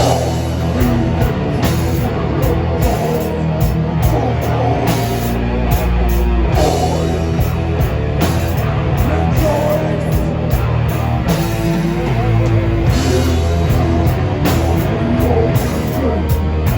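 Live rock band playing loud, heavy rock with guitars, bass and a drum kit, recorded from the audience.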